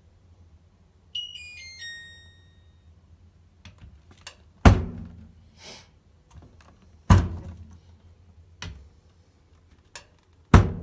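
Compact clothes dryer's touch panel plays a short falling chime of about four notes. Then come five hard thunks, the loudest about halfway in and near the end.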